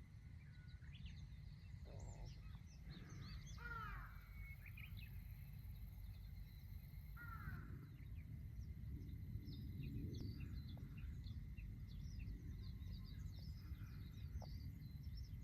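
Birds chirping and calling outdoors, with two louder downward-sweeping crow-like caws about four and seven seconds in, over a low steady rumble.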